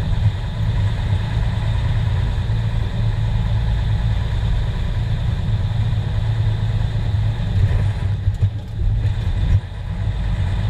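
Praga V3S military truck's air-cooled six-cylinder diesel running with a steady, deep drone, heard from inside the cab as the truck drives along. The sound eases briefly near the end.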